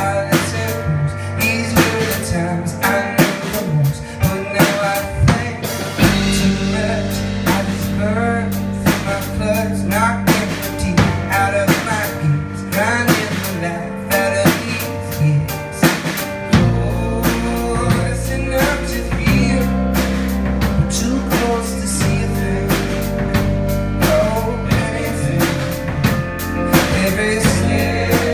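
Live band playing an instrumental passage: a drum kit keeping a steady beat under electric keyboard and electric guitar. Sustained low bass notes come in about six seconds in.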